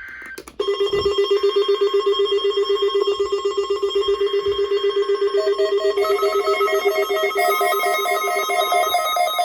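Weather radio warning alarm sounding for a weekly test: a steady, rapidly pulsing alarm tone that starts about half a second in, layered with higher steady tones. More tones join about five and a half and six seconds in, and the lowest tone stops near the end.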